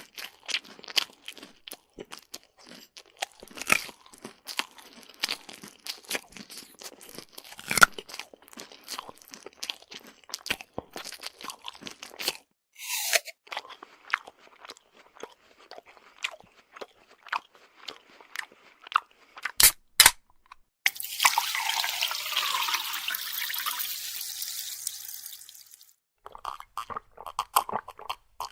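Mouth-eating sound effects: crunchy chewing and biting, dense irregular crunches for most of the time. Near the end the chewing gives way to a steady hiss lasting about five seconds, after two sharp clicks, before the chewing resumes.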